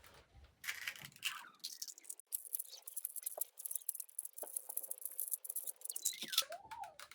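A Rubik's Cube turned quickly by hand in a solve: a fast, irregular run of small plastic clicks and rattles as its layers twist.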